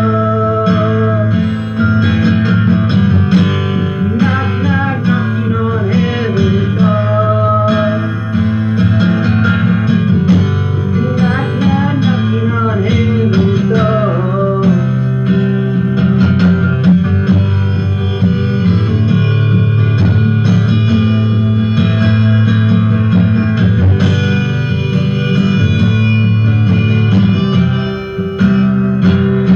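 Acoustic guitar strummed steadily, with a harmonica played in a neck holder carrying a wavering melody over it.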